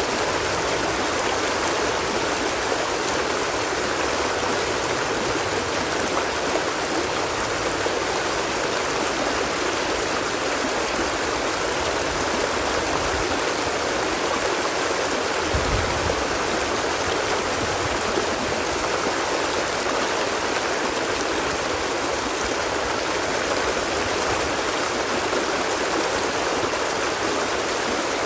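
Stream water flowing in a steady, unbroken rush.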